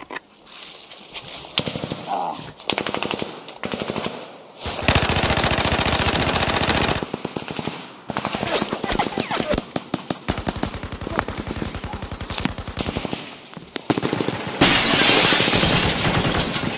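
Heavy automatic gunfire. Scattered shots and short volleys in the first few seconds give way to long continuous bursts of rapid fire, each lasting two to three seconds, the loudest near the end.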